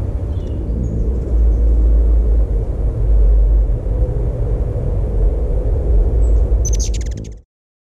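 Loud, uneven low rumble of wind buffeting an outdoor camera microphone, swelling and easing. Near the end comes a short burst of high clicks, and then the sound cuts off suddenly.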